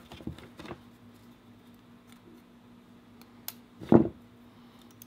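Plastic model-kit parts being handled, with a few light clicks, a sharper click, then a short knock about four seconds in. A faint steady hum runs underneath.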